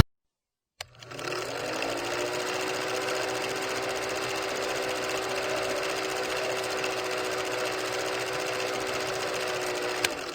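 A small motor starts with a click, whines up in pitch over about a second, then runs with a steady hum until it stops near the end.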